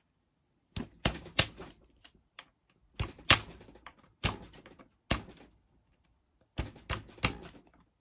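A series of sharp taps and knocks in uneven clusters, with short silences between: the pivot rod being knocked back into an electric unicycle's pedal hinge.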